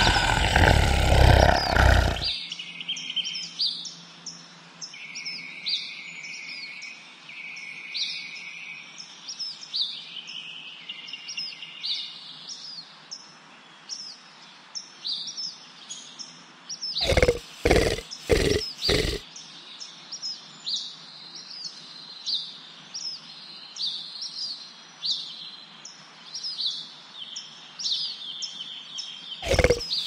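Komodo dragon sounds over small birds chirping: a loud, rough sound that cuts off about two seconds in, then four short loud bursts a little past halfway and another run of them near the end. Between them, many quick high bird chirps repeat over a steady background.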